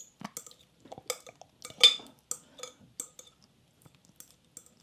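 A metal utensil clinking and scraping against glass dishes as a wet, chunky mixture is scraped out of a bowl into a glass baking dish: a string of irregular light clinks and knocks, the loudest a little under two seconds in.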